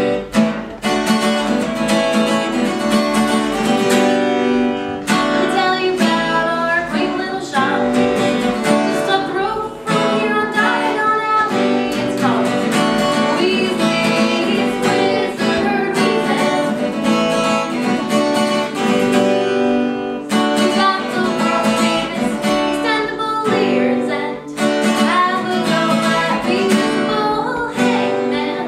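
A live band song: strummed acoustic guitar with singing.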